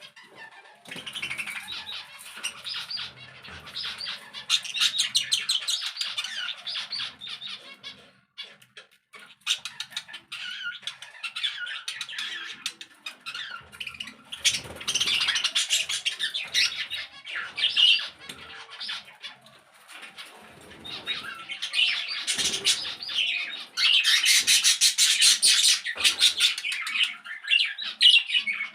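A flock of caged pet birds chattering and chirping, with squawks mixed in. The calls come in waves that swell and briefly die down several times, and they are loudest near the end.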